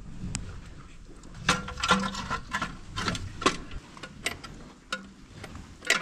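Metal parts of a livestock water fountain's valve assembly clinking and knocking against each other and the steel housing as they are fitted by hand. An irregular run of sharp clicks, some with a short metallic ring, starts about one and a half seconds in.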